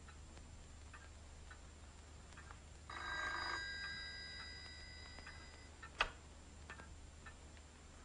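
Old desk telephone's bell rings once, a short burst about three seconds in whose tone lingers and fades, followed about six seconds in by a sharp click as the receiver is picked up. A clock ticks faintly throughout.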